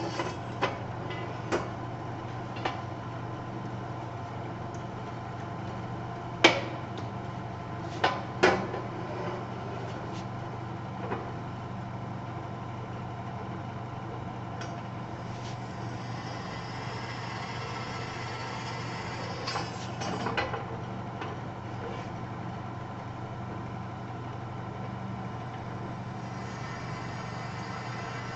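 Drill press motor running steadily while a 1/4-inch bit drills pilot holes in a steel I-beam, with a few sharp metal clanks and knocks, the loudest about six and eight seconds in.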